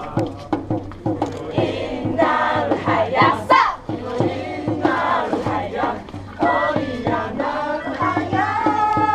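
Music for a Taiwanese folk dance: a group of voices singing and chanting together, with a rising shout about three and a half seconds in, over sharp rhythmic knocks.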